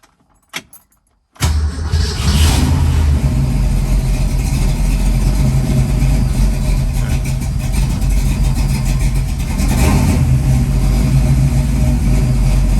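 Freshly rebuilt Ford 331 stroker small-block V8 starts about a second and a half in, just after a click. It then runs, rising briefly just after starting and again near the end. Its idle is still unsorted: the owner says the mixture screws need adjusting.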